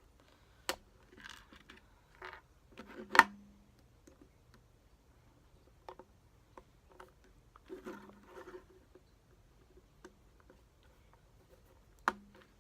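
Small plastic clicks and short scrapes as a tiny flathead screwdriver pries at the centre cap of a Rubik's Cube, with one loud, sharp click about three seconds in.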